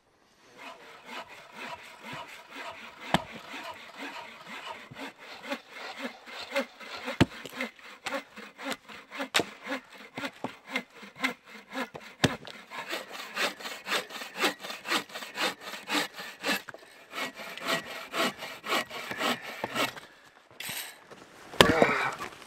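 Bow saw cutting through a log with quick, even back-and-forth strokes, broken now and then by sharp axe chops into wood, the loudest near the end.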